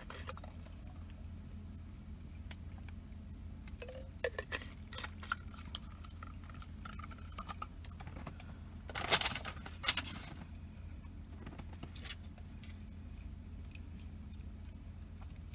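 Handling and rummaging noises as someone searches through things for a receipt: scattered clicks, taps and rustles, with louder rustles about nine and ten seconds in, over a steady low hum.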